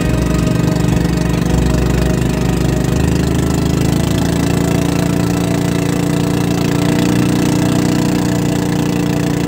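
Engine of a motorized outrigger boat running steadily under way, loud and even, its note shifting slightly about three seconds in.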